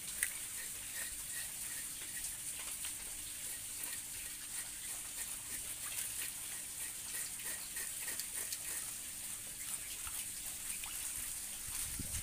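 Water running steadily from a hose onto a butchered pig carcass as it is washed. Faint short chirps repeat over it.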